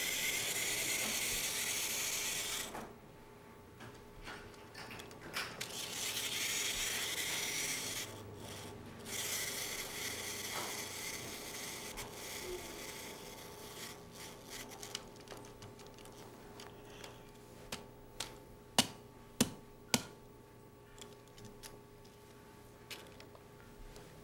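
Small wind-up toy's clockwork mechanism whirring in several spells of a few seconds each. Near the end come three sharp clicks in quick succession.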